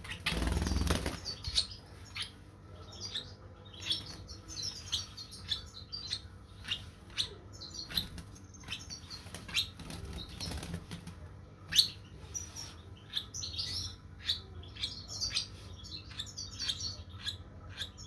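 Young lovebird chick giving many short, high chirps, with a brief flutter of its wings about the start and a sharp tap about two-thirds through.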